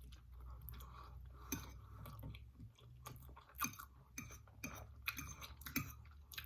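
A person chewing food close to the microphone, with irregular sharp mouth clicks and smacks.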